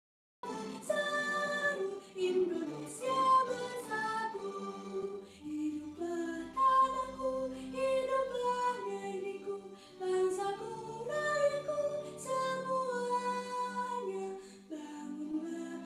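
A girl singing solo into a microphone. The song starts suddenly about half a second in, out of silence, and runs on as a flowing sung melody with short breaths between phrases.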